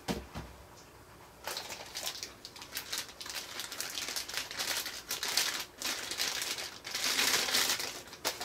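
Clear plastic bags crinkling as wrapped resin figure parts are handled and lifted out of a styrofoam packing tray, most intense near the end. There is a single knock just at the start as the figure's base is set down.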